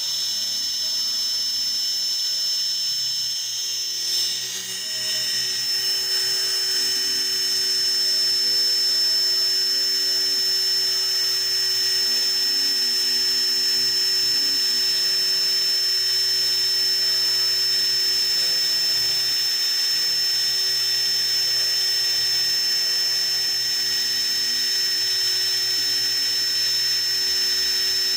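CNC machine finishing a cut: a steady high-pitched whine with lower tones that shift in steps as the machine moves, and a brief change in the sound about four seconds in.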